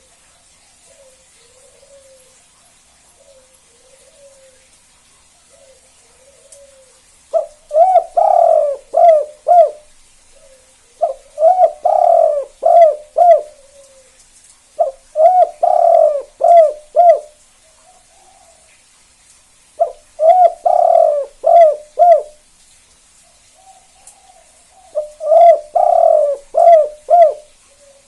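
Spotted dove (tekukur) cooing in the 'kuk 2' song type: soft coos at first, then, from about seven seconds in, five loud phrases of several quick notes each, with short pauses between.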